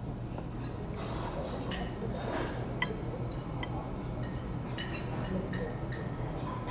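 Metal fork and knife clinking and scraping against a ceramic bowl while noodles are gathered, with a few light sharp clinks spread through, over a steady low room hum.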